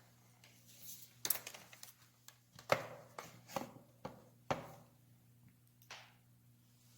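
Light knocks and clatter of hard objects handled on a tabletop: about five sharp knocks spread over several seconds, with small clicks between them.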